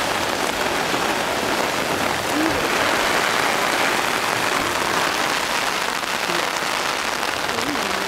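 Heavy monsoon rain pouring down onto an umbrella and the wet street around it, a dense, steady hiss of rain that swells slightly a few seconds in.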